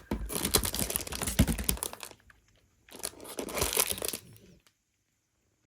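Parcel packaging being handled and rustled, in two bursts of about two seconds and one and a half seconds, then stopping.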